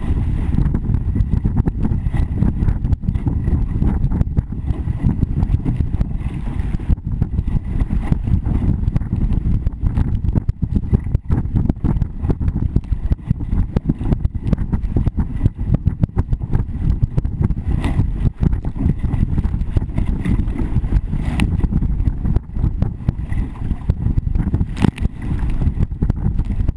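Wind buffeting the microphone of a camera mounted on the deck of a racing sailing dinghy, a loud, low rushing with water hissing past the hull and spray spattering against the camera in frequent sharp hits.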